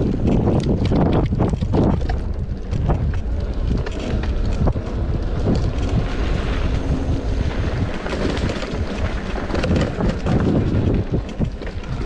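Wind buffeting the microphone during an off-road bicycle ride, with frequent short knocks and rattles from the bike going over a rough trail.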